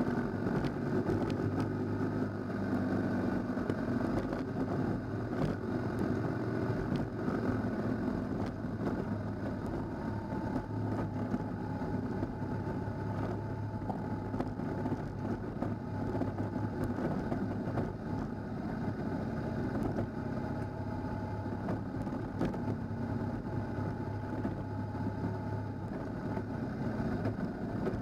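Motorcycle engine running at a steady cruise on a gravel dirt track, with scattered ticks of loose stones under the tyres.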